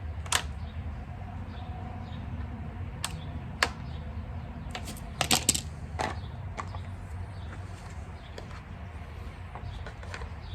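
Scattered sharp clicks and light metallic taps from small engine parts and a screwdriver being handled during repair, including a quick cluster of clicks about halfway through, over a steady low hum.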